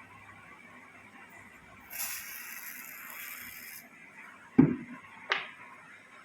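Aerosol spray hissing for about two seconds, isopropyl alcohol being sprayed onto a RAM module's gold contacts, followed by two sharp knocks near the end.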